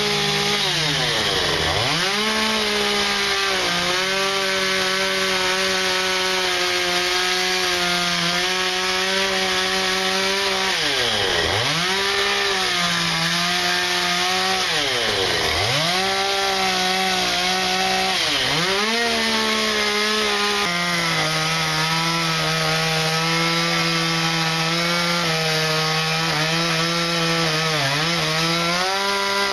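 Two-stroke Stihl chainsaw running at high revs while it cuts into western red cedar. The engine note drops sharply and climbs back about five times as the throttle is eased and squeezed again, and it holds a slightly lower steady pitch through the later part.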